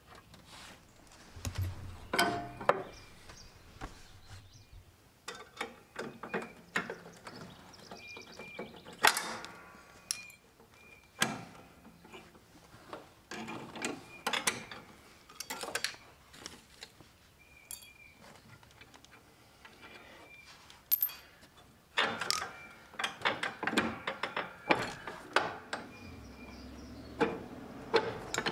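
Metal clinks, clicks and rattles of a Husqvarna lawn tractor's mower deck pins being worked loose and pulled out by hand. They come in irregular clusters of sharp knocks, the busiest near the end.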